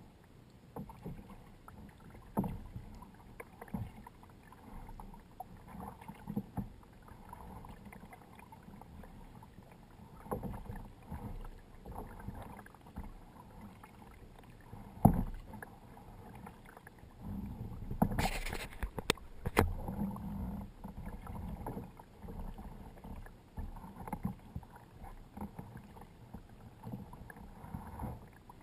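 Kayak paddling: irregular paddle strokes with water splashing and dripping off the blades. A sharper splash or knock comes about fifteen seconds in, and a louder burst of splashing noise around eighteen to nineteen seconds.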